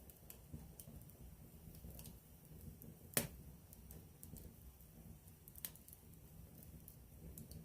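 Wood campfire burning with a low rumble and scattered crackles, one sharp pop about three seconds in and a smaller one a few seconds later.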